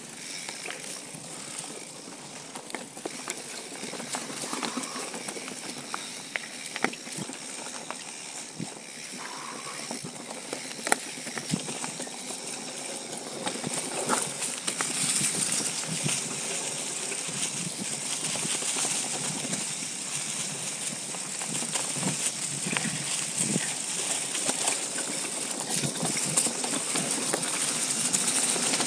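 Mountain bike rolling over a dry, leaf-covered dirt trail: tyre noise on dirt and leaves with frequent knocks and rattles from the bike as it goes over bumps and roots. A steady hiss grows louder from about halfway through as the bike speeds up.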